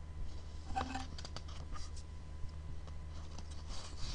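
Keystrokes on a computer keyboard: a quick run of clicks about a second in, then a few scattered ones, over a steady low electrical hum.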